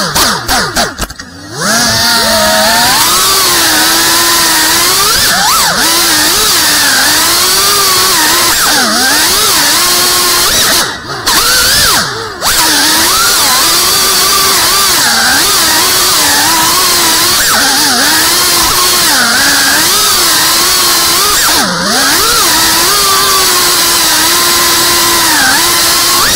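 FPV drone's brushless motors and propellers whining, the pitch rising and falling constantly as the throttle changes. There are three brief drops in volume along the way.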